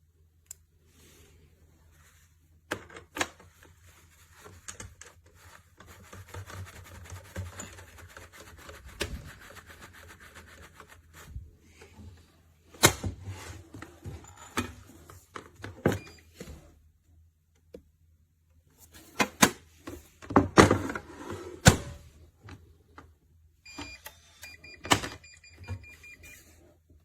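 A small metal pistol safe being handled: scattered clicks, knocks and rustling, with a few short electronic beeps about three-quarters of the way through.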